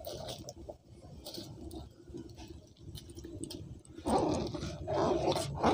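Soaked rice dropped by hand into a pot of boiling water, then stirred with a metal ladle. A louder, rough sound starts about four seconds in.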